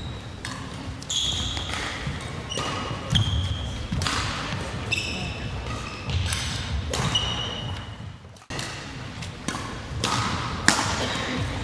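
Badminton rally in a large sports hall: sharp racket strikes on the shuttlecock, shoes squeaking on the wooden court floor, and the thud of footfalls.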